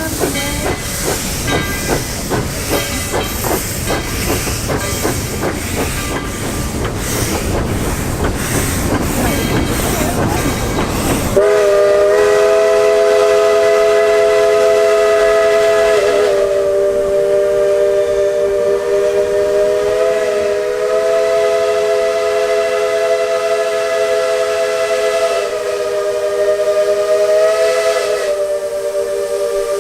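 Steam locomotive hissing steam with a pulse about twice a second. About eleven seconds in, its chime whistle starts: a long, loud three-note chord held to the end, wavering in pitch a few times.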